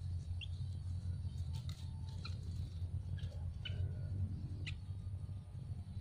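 Yellow-vented bulbul nestlings begging in the nest with short, high squeaky chirps, about half a dozen spread over the few seconds. A steady low rumble runs under them.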